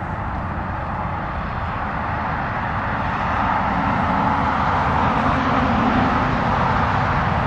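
Steady drone of distant engine noise, slowly growing louder.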